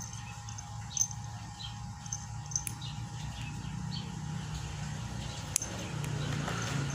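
Outdoor background of scattered faint bird chirps over a low steady hum, with a few light clicks.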